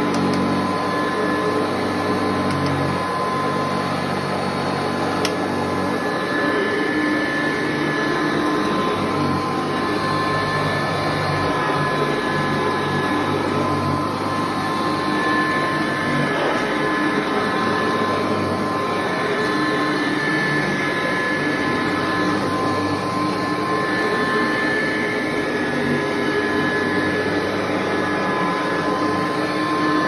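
Upright vacuum cleaner running steadily while pushed over a thick rug: a rush of air with a steady high motor whine.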